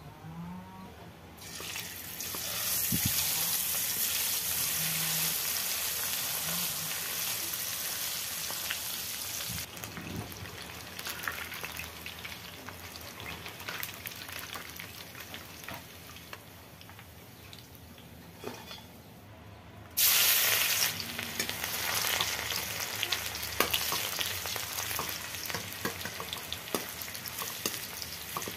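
Hot oil sizzling in an iron kadai as chicken feet deep-fry, with the clink and scrape of a metal skimmer. About twenty seconds in, a much louder sizzle starts suddenly as fresh ingredients hit the oil, followed by a metal ladle scraping and stirring in the pan.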